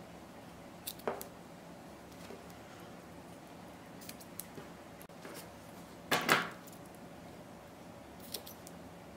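Small scissors snipping and handling cotton macrame cord: a few short, sharp snips and clicks, the loudest about six seconds in.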